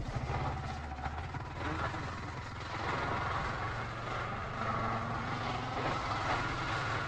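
Motorcycle engine running steadily while riding, with wind and road noise on the camera's built-in microphone.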